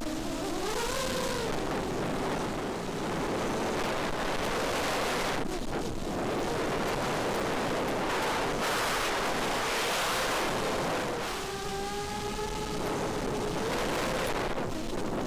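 FPV racing quadcopter's four brushless motors (2204 2300kv) and 5-inch bullnose props whining, the pitch sliding up and down with the throttle, under rushing wind on the onboard camera's microphone. Around twelve seconds in the whine steadies into a clearer, multi-toned buzz.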